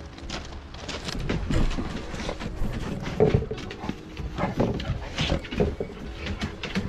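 Two-month-old Central Asian Shepherd puppies playing on a wooden deck: paws scrabbling and knocking on the boards, with a few brief puppy vocal sounds about three and four and a half seconds in.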